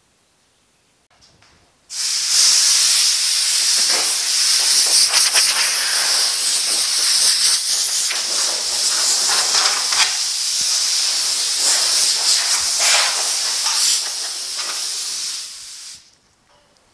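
Compressed-air blow gun hissing, blowing sanding dust off a primed truck bed before tacking and priming. The hiss starts about two seconds in, flutters a little as the air plays over the panels, and cuts off sharply near the end.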